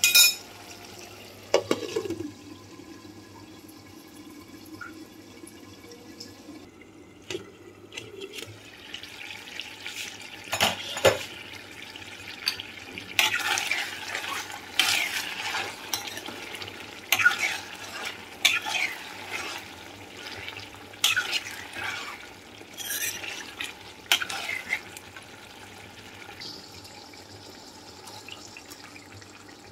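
A metal spoon stirring chicken pieces and sliced onions in a cooking pot, with a series of short scrapes and clinks against the pan over a soft sizzle of the chicken cooking in its juices.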